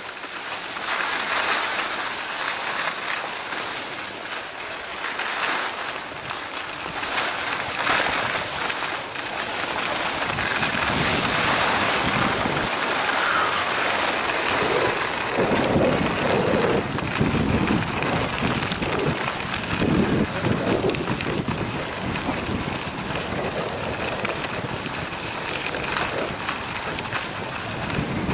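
Skis hissing and scraping over packed snow on a downhill run, with wind rumbling on the handheld camcorder's microphone in gusts from about halfway through.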